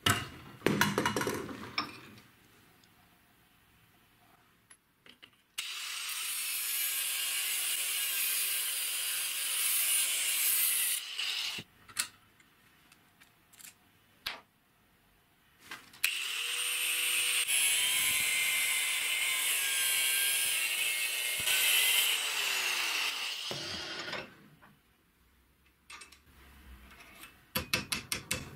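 Power tool spinning a burr-type bit against a spark plug's ceramic insulator clamped in a steel bench vise, running in two long steady spells of several seconds, with shorter scrapes and knocks between them. Near the end comes a quick run of light metallic taps.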